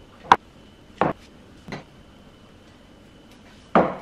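Jars being set down one at a time on a kitchen counter: four sharp knocks spread over a few seconds, the first with a short glassy ring.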